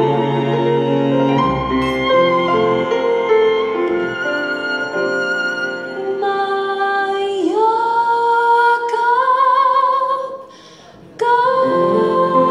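A woman singing a ballad live into a microphone over piano and string accompaniment. About seven seconds in her voice rises into a long held note with vibrato; everything drops away for about a second near the end, then the singing and music come back.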